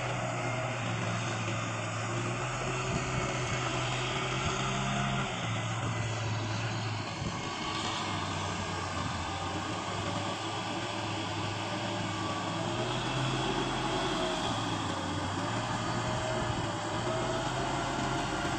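Kubota M6040SU tractor's diesel engine running steadily as a continuous low drone, its pitch shifting slightly now and then.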